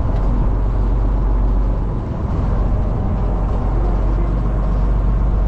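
A small boat's engine running steadily while under way, with a constant low rumble.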